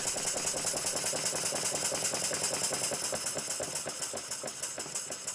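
A PM Research model oil-drilling steam engine running on compressed air: fast, even exhaust beats with the clatter of the mechanism, about ten a second, growing quieter near the end.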